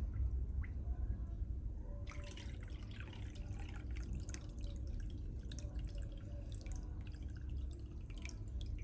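Water dripping and trickling in a small homemade fountain pond, starting about two seconds in, over a faint steady hum.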